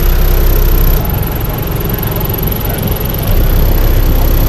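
Skar ZVX 18-inch subwoofer in a ported box tuned to 35 Hz playing very loud, deep bass through the closed truck cab. It eases off a little about a second in and comes back full about three seconds in.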